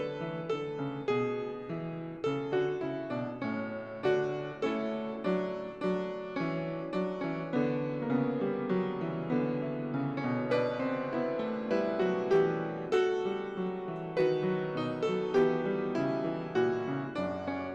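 Solo piano playing chords and melody, each note struck and then fading: the postlude closing the service after the benediction.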